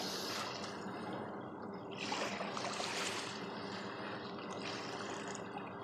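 Steady rush of fast-flowing, turbulent river water.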